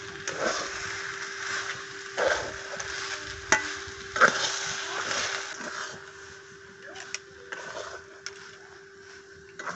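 Metal spatula scraping and stirring thick semolina halwa in an aluminium karahi, stroke after stroke, with a few sharp taps of the spatula on the pan; the strokes grow fainter in the second half. A faint steady hum runs underneath.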